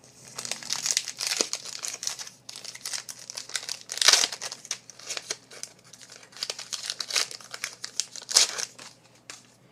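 A trading-card pack wrapper being torn open and crumpled: dense crinkling with two louder bursts, about four seconds in and again near the end.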